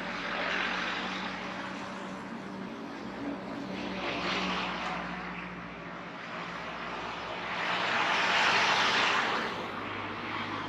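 Cars passing close by on an asphalt road, their tyre and engine noise swelling and fading three times, loudest near the end as two cars go by, over a faint steady low hum.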